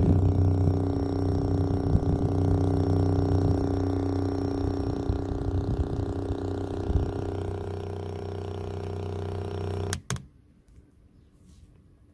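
Opened JBL Xtreme 2 speaker with its woofers exposed, playing a steady low bass test tone with a few irregular thumps. The tone fades slightly, then cuts off with a click about ten seconds in.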